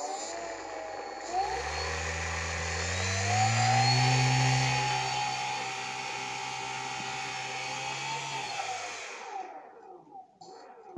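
Skyshark Lightning 25 brushless motor spinning an EP 1170 (11x7) propeller in a ground run. Its whine rises as the throttle opens over the first few seconds, is loudest about four seconds in, holds steady, then winds down and stops near the end.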